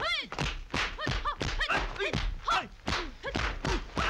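Hand-to-hand fight sound effects in a dubbed Hong Kong action film: a quick run of punch and kick impacts, about three or four a second, most of them paired with a short shouted yell or grunt that falls in pitch.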